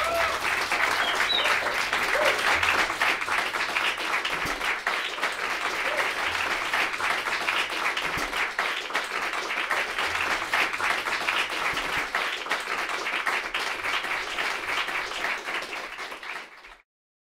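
Audience applauding, many hands clapping together at a steady level, then cutting off abruptly near the end.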